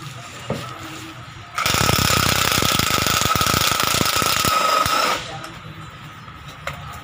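Impact wrench hammering on the top nut of a front strut held in a spring compressor. It runs for about three and a half seconds, starting about a second and a half in: rapid hammer blows under a steady whine.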